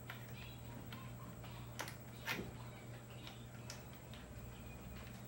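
A rotary tool's collet and nose handled by hand: a scatter of small sharp clicks and taps, the loudest a couple of seconds in, over a faint steady low hum.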